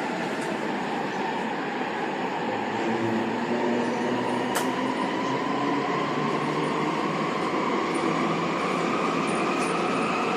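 Sendai Subway Tozai Line train running through a tunnel, heard from inside the car: a steady rumble of wheels on rail with a motor whine that rises slowly in pitch as the train gathers speed.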